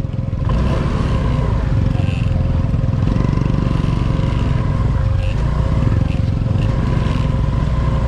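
Motorcycle engine running steadily while riding along a muddy dirt track, with a steady whine over a dense low rumble of wind on the microphone.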